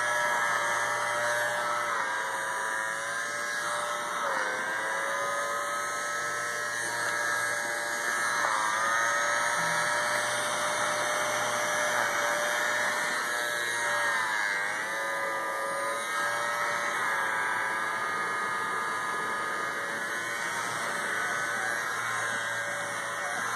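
Handheld cordless pet-hair vacuum's small motor running with a steady whine, its pitch sagging briefly and recovering several times.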